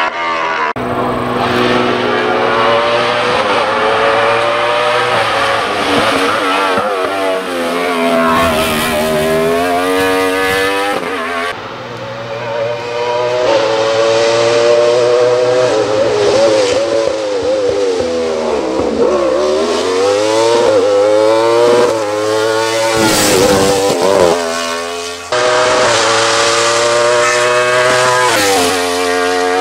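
Wolf Thunder GB08 sports-prototype race car's high-revving engine accelerating up a hillclimb course, its pitch climbing through each gear and dropping back at every upshift. About two-thirds of the way in, the pitch falls and rises again as the car brakes, changes down and accelerates away. The sound jumps abruptly a few times between separate shots of the car.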